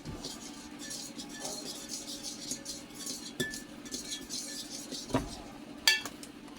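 Pancake batter being stirred in a bowl: a utensil scraping round the bowl again and again, with a few sharp clinks against its side, the loudest a ringing clink near the end.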